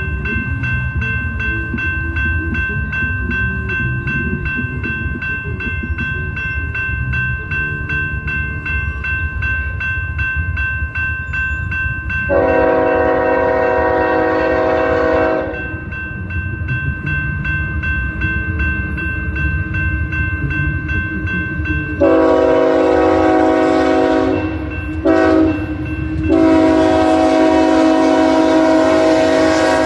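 BNSF diesel locomotive horn sounding the grade-crossing signal: a long blast, then after a pause long, short, long, over the steady ringing of the crossing bell and the low rumble of the approaching train.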